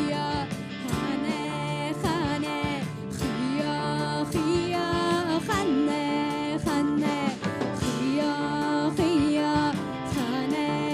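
Live band playing a song: a woman singing a melody of long held, wavering notes over bass guitar, electric guitar, drum kit and tambourine, with a steady beat.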